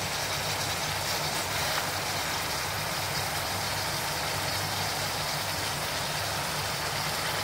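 Sliced gourd cooking in oil and masala in a metal karahi: a steady sizzle, with a low steady hum underneath.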